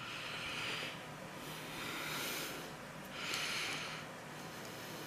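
A man breathing heavily through his nose close to the microphone: three long, hissy breaths about a second and a half apart.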